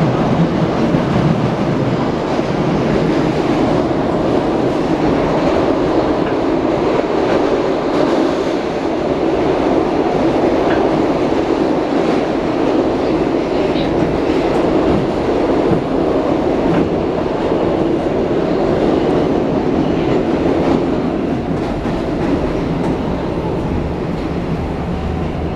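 Inside a SEPTA Adtranz M4 Market-Frankford Line subway car under way in the tunnel: a loud, steady rumble of wheels on rail with scattered faint clicks, getting slightly quieter near the end.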